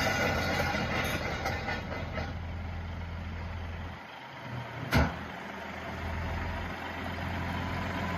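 1994 Caterpillar D6H crawler dozer's diesel engine running at a low, steady idle that drops away briefly about four seconds in, with a single sharp knock about five seconds in.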